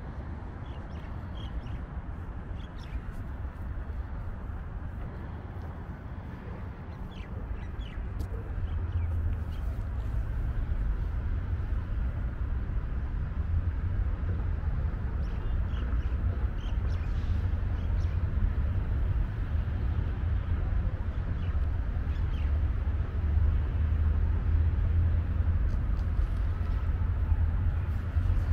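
Open-air city ambience: a steady low rumble that grows louder about eight seconds in, with a few faint, short bird calls.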